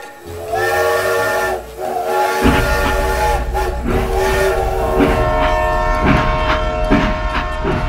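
Toy steam locomotive's electronic sound effect: a chord-like steam whistle blown in a few blasts. From about two and a half seconds in, the toy's running hum joins, with a regular chugging under the continuing whistle tones.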